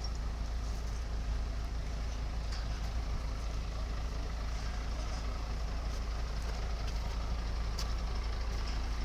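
Steady engine rumble of a heavy vehicle running on a construction site, with a few sharp clicks.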